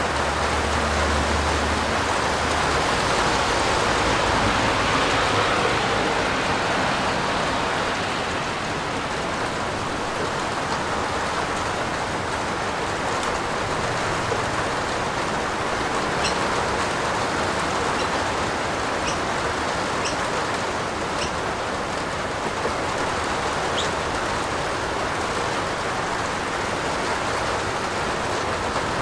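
Steady heavy rain falling on a roof, a dense even hiss, with a few sharper drops ticking through it in the second half.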